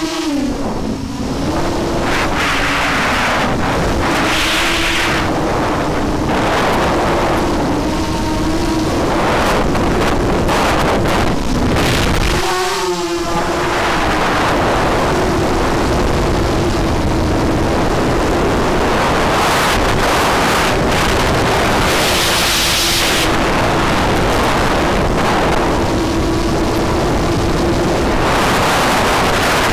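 FPV racing quadcopter's electric motors and propellers whining in flight, recorded on the onboard camera with wind noise on its microphone. The steady tone wavers with throttle and dips briefly about halfway through before picking back up.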